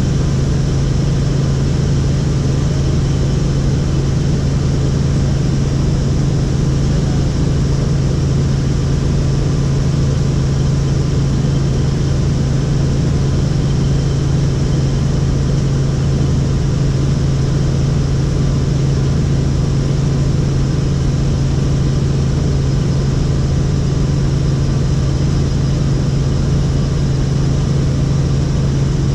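Helicopter in flight heard from on board: a loud, unchanging drone of engine and rotor with a strong low hum.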